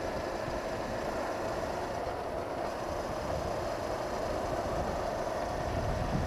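Steady wind rush over a helmet-mounted camera at riding speed, mixed with the Honda CB500X's parallel-twin engine running at a steady cruise.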